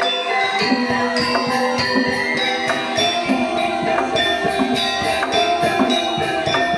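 Balinese gamelan playing: bronze metallophones and gongs ringing in many steady tones under a dense, even run of strikes, with bright metallic strokes on top.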